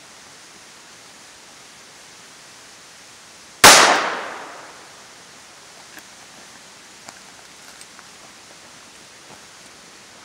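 A single .38 Special handgun shot, fired once about three and a half seconds in, its echo dying away over about a second.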